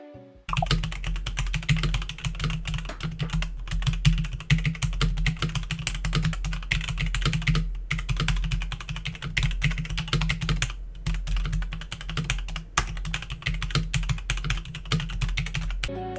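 Fast typing on a Kemove K98SE mechanical keyboard: a dense, continuous run of key clicks with a few brief pauses.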